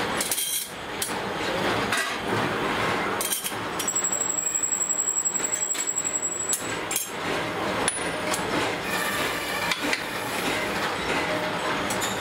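Steady din of workshop machinery, with sharp metal clinks as steel sprocket blanks are stacked onto a mandrel. A rapid, regular pulsing runs through the middle.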